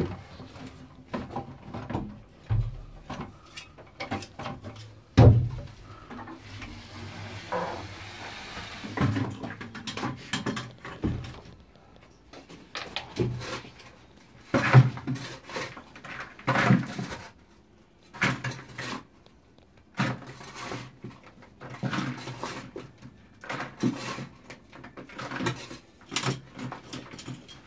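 Irregular knocks, clunks and scrapes of hand digging in a shaft: tools working into soil and broken rock, and a bucket of spoil being handled. A few seconds of hiss come in about six seconds in.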